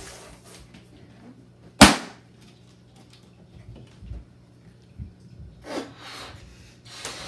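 A latex balloon popped with a toothpick: one sharp bang about two seconds in. Later come breathy puffs of a balloon being blown up.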